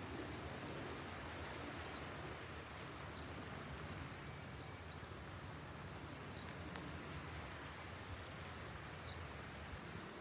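Strong wind blowing steadily: a rushing hiss with a low rumble of gusts buffeting the microphone. A few faint, short, high chirps come through now and then.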